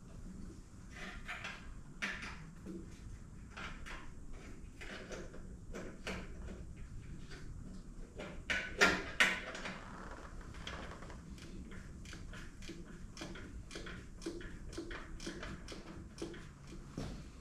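Hand tools clicking and clanking on motorcycle hardware, a string of irregular small metallic clicks with a few louder knocks about nine seconds in.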